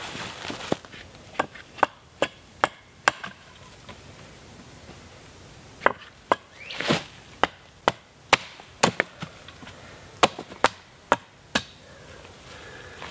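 Axe chopping at the end of a wooden stave to sharpen it to a point: a run of sharp wood-on-steel chops about half a second apart, a pause of a couple of seconds, then another run of chops.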